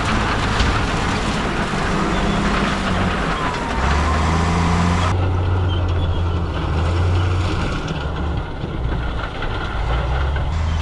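Heavy diesel engine of an earthmoving machine running, with rattling and grinding on top. About five seconds in the sound changes abruptly and the hiss drops away, leaving mainly the engine hum.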